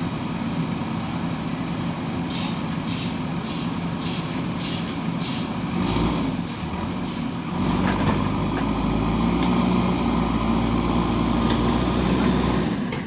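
JCB backhoe loader's diesel engine running, with a run of sharp knocks about two a second in the first half. About eight seconds in, the engine works harder and gets louder.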